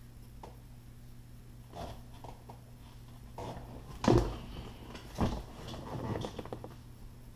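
A car's front passenger seat being handled and lifted out of its floor mounts: a few light clicks, then a loud knock about four seconds in, another knock a second later, and a short run of rattling and scuffing. A steady low hum runs underneath.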